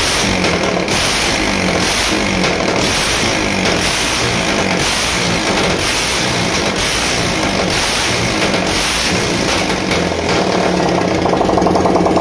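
Honda Dream Yuga's single-cylinder four-stroke engine running with its silencer removed, a loud open-exhaust note with an even pulsing beat. The engine note itself sounds fine, which the mechanic says as well.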